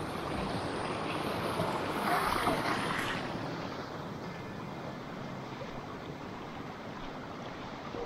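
Water running along a narrow stone-lined channel: a steady rushing noise, swelling a little about two to three seconds in.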